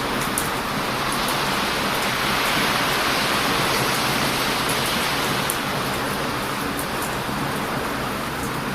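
Heavy surf on a beach: a steady rush of breaking and washing waves that swells somewhat around the middle, with scattered small sharp crackles from a wood bonfire.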